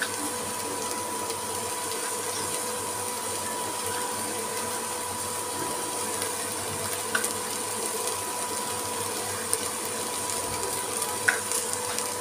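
Induction cooktop running with a steady hum and a faint whine, under a light sizzle of onions and spices cooking in a little water in an aluminium pressure cooker. A few faint clicks occur in the second half.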